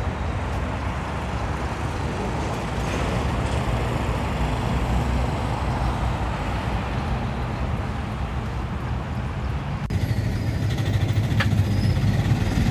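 Steady road-traffic noise, then after a cut about ten seconds in, the low engine rumble inside a moving minibus.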